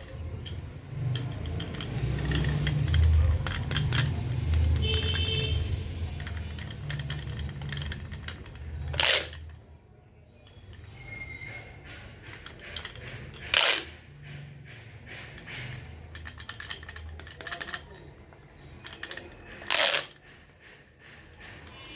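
Plastic pop tubes being handled, stretched and bent, crackling with many small crunchy clicks, and three louder sharp pops spaced several seconds apart.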